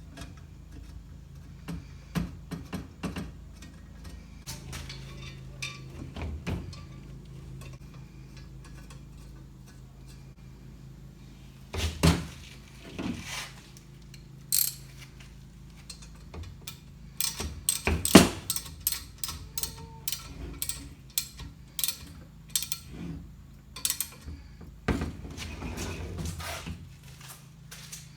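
A 10 mm socket ratchet clicking in short runs and metal stand parts knocking as a crossbar is bolted to the table saw stand's legs, with a few louder clunks about 12 and 18 seconds in.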